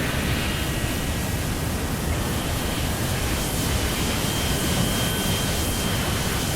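Synthesized musique concrète passage: a steady wash of rushing noise, with faint high held tones above it, one growing a little stronger about halfway through.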